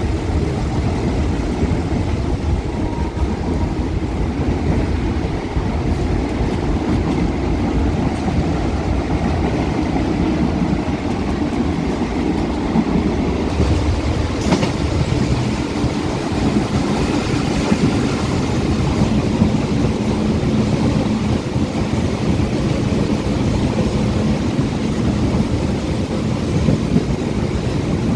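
Ordinary diesel-hauled passenger train on the move, heard from inside its fan-cooled carriage with open windows and doors: a steady rumble of wheels on the rails. It takes on more hiss from about halfway.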